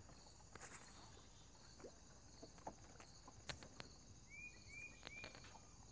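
Near silence outdoors: a faint steady high hiss, a few scattered soft clicks and knocks, and three short chirps in quick succession near the end.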